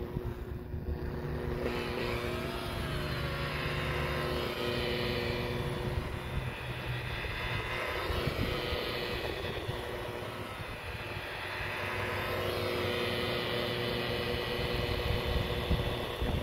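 DeWalt DWP849X rotary buffer running with a wool pad, cutting oxidized boat gelcoat with heavy-cut rubbing compound: a steady motor hum over the hiss of the pad on the hull. The motor note fades around the middle and comes back later.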